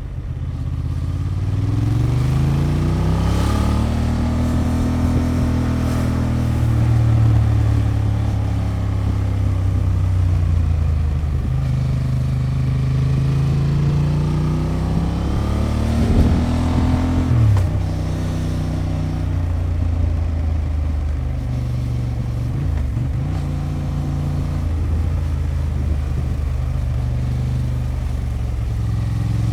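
Honda XL750 Transalp's parallel-twin engine through its stock exhaust under way: the pitch climbs as it accelerates near the start, then holds at a steady cruise. It climbs again about halfway through, drops suddenly at a gear change, and settles back to a steady run.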